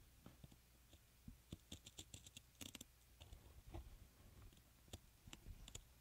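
Small sewing scissors snipping through fabric: faint quick cuts and clicks, closest together from about a second and a half to three seconds in, then a few single snips.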